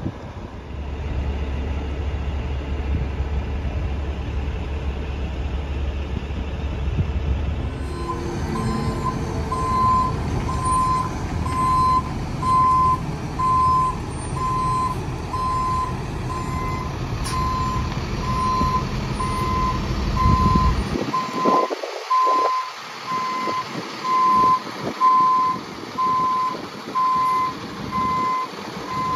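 Diesel truck engine running with a low rumble. About eight seconds in, a truck's reversing alarm starts beeping steadily, about one beep a second.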